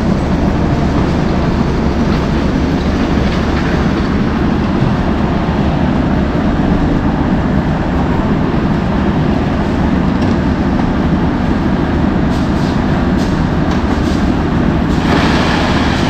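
A concrete mixer and its hoist running continuously with a loud, steady machine rumble. Near the end a rush of wet concrete sliding out of the hoist bucket into a wheelbarrow is added to it.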